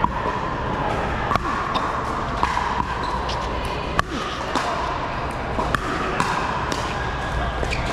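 Pickleball rally: paddles striking a hollow plastic pickleball in a string of sharp pops, roughly one a second at an uneven pace. The loudest pop comes about four seconds in. The pops echo in a large indoor hall over steady background noise.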